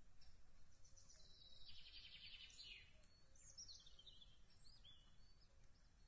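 Faint songbird song: a fast trill for about two seconds, then a few short down-slurred notes, over a low background rumble.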